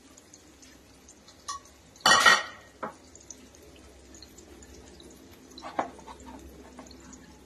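A loud clatter of metal kitchenware about two seconds in, with a few lighter clinks before and after it and a smaller knock near the end, over faint sizzling of potato snacks deep-frying in ghee in a kadhai.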